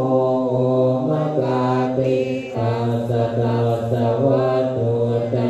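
A group of Thai Buddhist monks chanting their evening recitation in unison: a low male-voiced near-monotone with held syllables and small steps in pitch.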